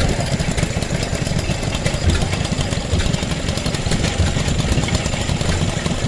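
Vintage engine running steadily at idle, with a rapid, even low chugging.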